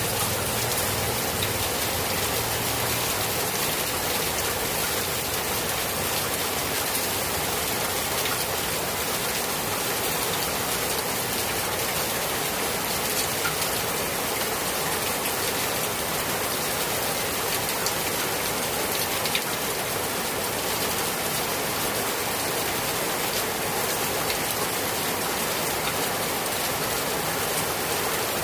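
Steady rain falling on a papaya tree: an even hiss of rain with scattered sharper ticks of single drops.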